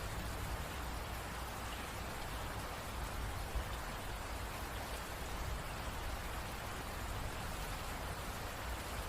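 Steady rain falling and pattering on surfaces, an even hiss with a low rumble underneath.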